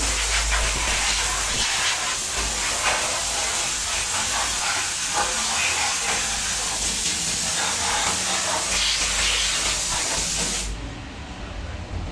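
Compressed air hissing steadily from a workshop spray or blow gun, as used to clean motorcycle engine parts with petrol, with faint clatter in the background. The hiss cuts off suddenly near the end.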